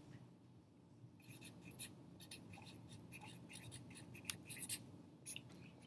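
Sharpie marker writing on paper: a run of short, faint, irregular strokes starting about a second in as words are written out.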